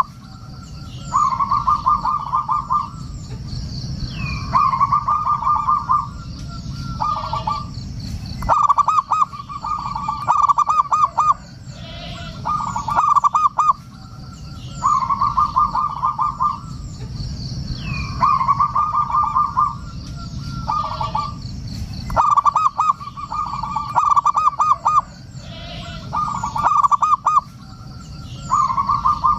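Zebra dove (perkutut) cooing. It gives phrase after phrase of quick staccato coos, each phrase one to two and a half seconds long, repeated every couple of seconds. Faint high chirping of small birds and a low steady rumble lie underneath.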